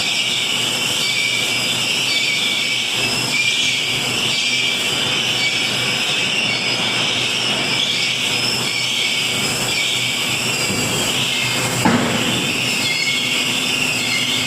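Steady, loud machinery noise in a flange forging shop, with a single sharp metal impact about twelve seconds in.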